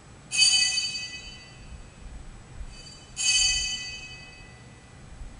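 Altar bell struck twice, about three seconds apart, each stroke ringing with several high tones and fading away: the bell rung at the elevation of the chalice after the consecration.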